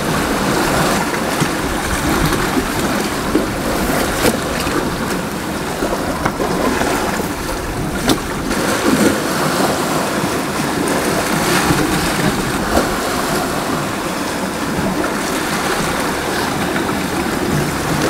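Wind buffeting the microphone over the steady rush of sea surf, with a few short knocks.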